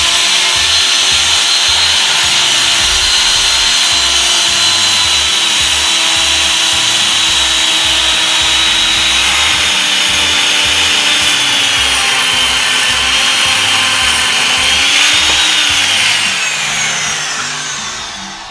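Electric power saw cutting through wood: a loud, steady high motor whine that sags slightly in pitch under load for a few seconds. Near the end the trigger is released and the motor spins down, its whine falling in pitch as it fades.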